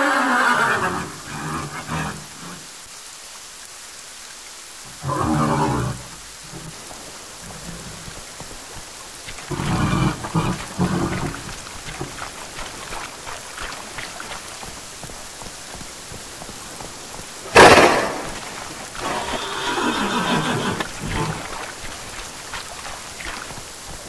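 Designed kelpie water-horse creature sound: steady rain with several separate horse-like calls laid over it. A single sharp, loud crack like thunder comes about two-thirds of the way through.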